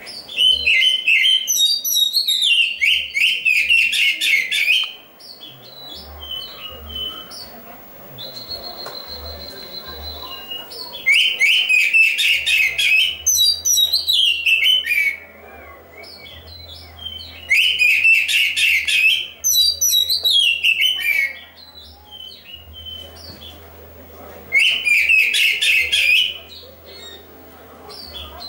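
Caged black-breasted oriental magpie-robin (kacer) singing loudly in four bursts of rapid, varied chattering and whistled notes, with pauses of a few seconds between them. In the first pause there is one steady, held whistled note.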